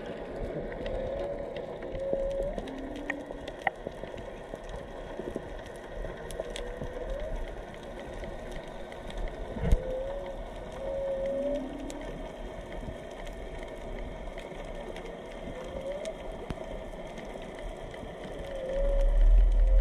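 Humpback whale song heard underwater: short calls repeat every few seconds, several of them rising in pitch, with a few lower units in between. Faint crackling and hiss lie underneath, and a loud low rumble comes in near the end.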